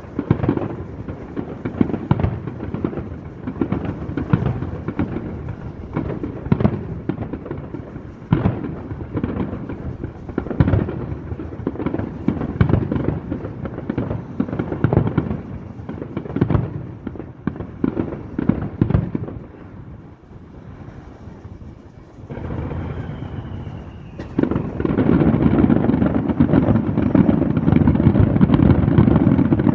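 Fireworks display: a rapid string of shell bursts for about twenty seconds, a short lull with a brief whistle, then from about twenty-five seconds in a dense, continuous barrage of bursts, louder than before.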